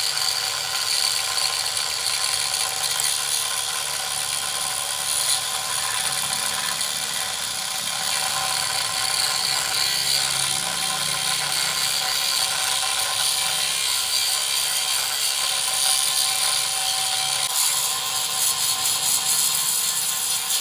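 Continuous machine-tool noise from engine-block work: a steady hiss with several steady whining tones. The sound changes texture and the lowest part drops away about three-quarters of the way through.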